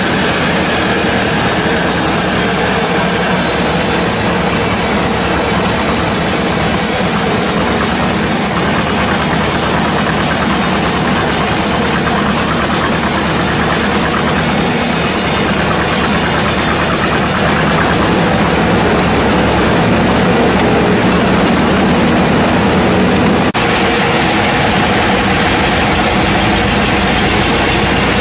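Sawmill saw and its engine running loudly and without a break: a dense hiss over a steady low drone. The sound shifts abruptly about 23 seconds in.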